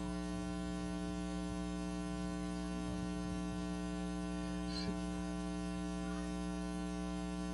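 Steady electrical mains hum with a buzzing edge, unchanging in pitch, with a faint click about five seconds in.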